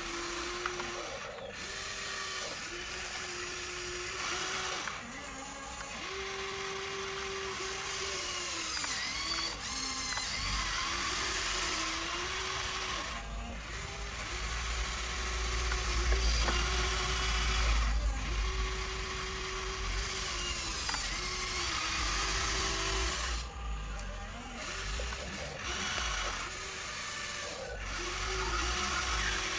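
RC hydraulic excavator's pump and motors whirring in short spurts, each lasting a second or two and changing pitch slightly, with a mechanical gear-like rattle and a low rumble under them.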